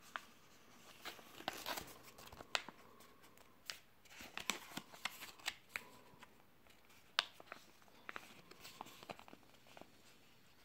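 Thin plastic packaging pouch crinkling and crackling as it is handled and turned over in the hands, in irregular sharp crackles.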